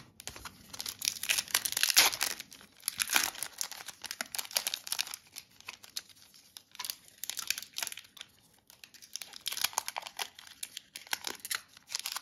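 Foil wrappers of Upper Deck hockey card packs crinkling and tearing as they are ripped open by hand. It comes in dense crackly spells, with a sparser stretch in the middle.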